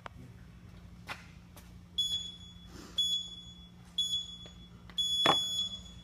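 Digital gym interval timer counting down: three short high beeps a second apart, then a longer beep as the clock starts. A loud thump lands with the final beep.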